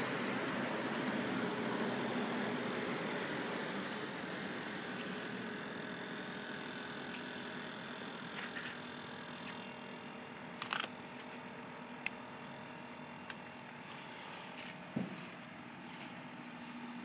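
G scale model train running along its track, a steady motor-and-wheel hum that fades gradually as it moves off. A few sharp clicks in the second half.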